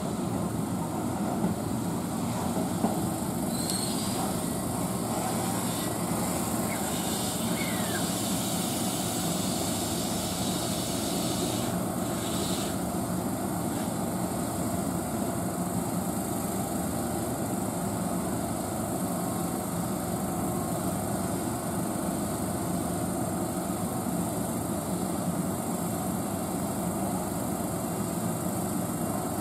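Steady rumble and hum of a Keihan electric commuter train at a station platform, even throughout, with no passing surge or braking squeal.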